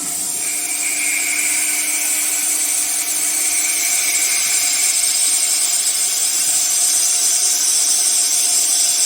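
Spindle of a CNC aluminium drilling-milling-tapping machine running steadily at high speed, machining aluminium, with a strong high hiss and a few steady tones.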